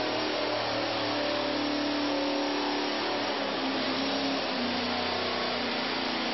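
Chevrolet LT1 6.2-litre V8 running steadily on an engine dynamometer, its note changing about four and a half seconds in.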